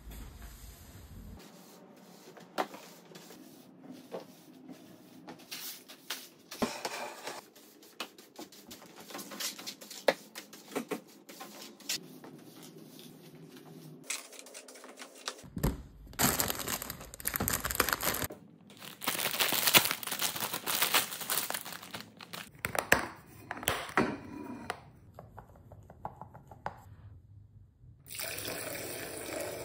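A run of cleaning sounds on a hardwood floor. First, rustling and soft knocks as a shaggy rug is lifted and pulled up. Then a push broom sweeps debris across the boards into a dustpan, and near the end there is a steady rush of water in a plastic spin-mop bucket.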